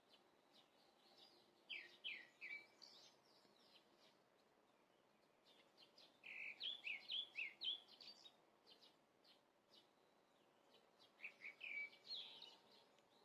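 A small songbird singing in three short phrases of quick, sweeping chirps, the middle one the longest and loudest, over a faint steady hiss.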